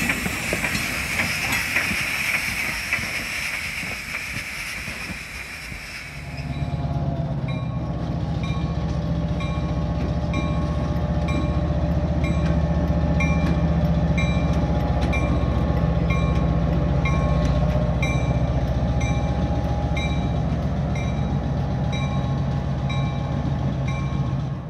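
A steady high hiss, then after about six seconds a diesel locomotive's engine running loudly with a steady low hum, while its bell rings a bit more than once a second.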